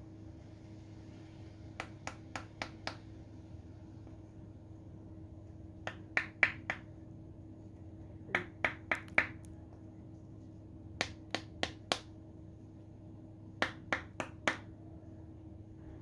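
Two rock-hard frozen tomatoes knocked together, giving sharp, hard clicks. They come in five quick runs of four or five knocks each, about four knocks a second, with pauses of a couple of seconds between runs.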